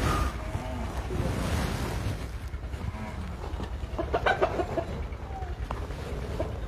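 Chickens clucking in short calls, a cluster of them about four seconds in, over the low, steady running of a fodder chaff cutter.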